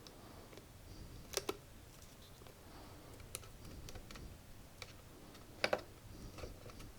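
Light clicks and taps from plastic parts being handled and fitted together, with two sharper double clicks, about a second and a half in and near the end.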